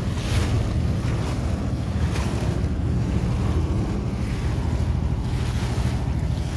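A small tour boat's motor running steadily under way, with wind gusting on the microphone.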